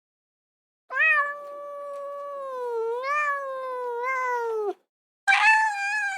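Domestic cat meowing: one long drawn-out, wavering meow lasting nearly four seconds, then a shorter, higher meow near the end.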